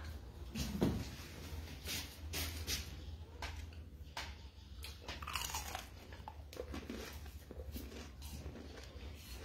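A person biting into and chewing a crispy fried taquito close to the microphone: a series of short, sharp crunches, over a steady low hum.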